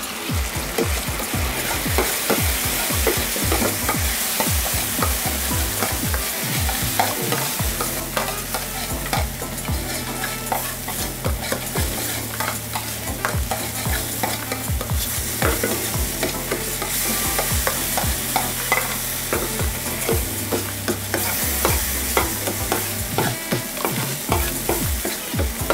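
Metal ladle stirring and scraping a spiced ketchup-and-hot-sauce mixture in a frying pan over a gas flame. The sauce sizzles steadily, with frequent clicks of the ladle against the pan.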